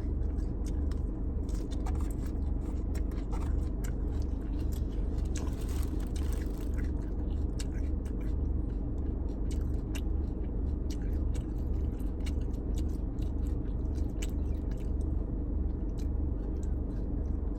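Close-up chewing and biting while eating a teriyaki chicken plate, with many small crunches and clicks, over a steady low rumble.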